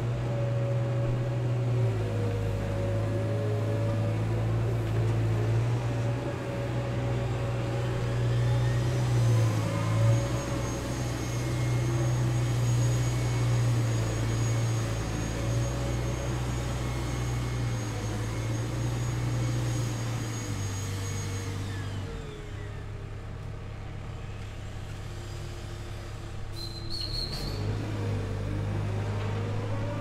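Komatsu wheeled excavator's diesel engine running with hydraulic whine, its pitch stepping up and down as the machine works. The engine eases off about two-thirds of the way through, with a brief high squeak, then picks up again near the end.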